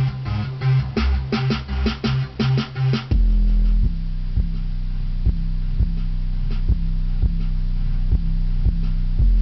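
Bass-heavy rap music playing. A choppy, stuttering beat of quick hits cuts off about three seconds in to a deep, steady bass drone with a soft beat about every three-quarters of a second.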